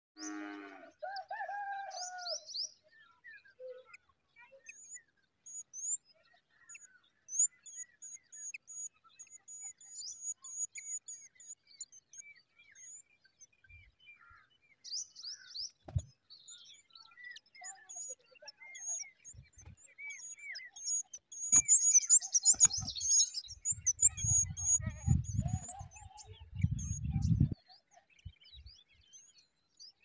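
Small birds chirping: many short, high, thin chirps with lower calls scattered among them. A dense flurry of chirps, the loudest part, comes about two-thirds of the way through, followed by low rumbling thumps near the end.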